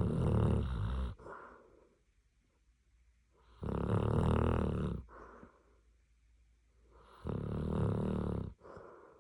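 Samoyed dog snoring in its sleep: three loud snores about three and a half seconds apart, each followed by a shorter, softer breath sound.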